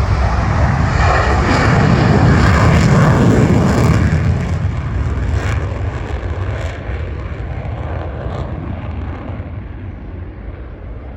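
A military jet flying past: a loud engine rush that builds to its peak a couple of seconds in, then fades steadily as it moves away.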